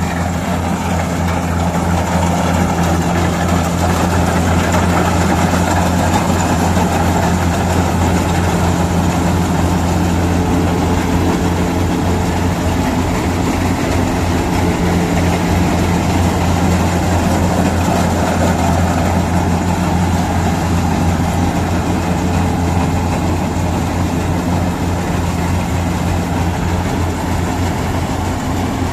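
Kubota DC-60 rice combine harvester running steadily: a deep, even diesel engine hum under a broad machinery noise, with no change in pace.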